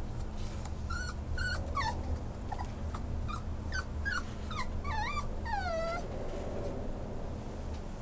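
Schnauzer puppy whining in a run of short, high whimpers that rise and fall in pitch, ending with one longer falling whine about six seconds in. A steady low hum runs beneath.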